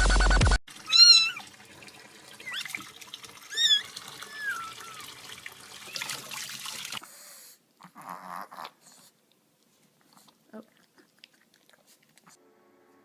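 Electronic music cuts off just after the start. A domestic cat then meows about four times in short calls that rise and fall, over a steady hiss that stops about seven seconds in. The rest is near quiet with a few faint knocks.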